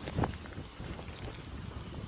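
Handling noise from products being set down: one sharp knock about a quarter of a second in, then a few light clicks, over a low wind rumble on the microphone.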